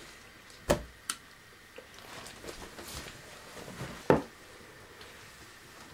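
Handling noise: a sharp knock, a small click, light rustling, then another sharp knock, as a cardboard box and a plastic toy truck are moved and set down on a table.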